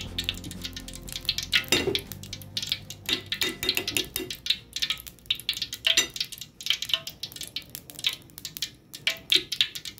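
Cooking oil heating in a stainless steel pan, crackling and popping in quick, irregular ticks.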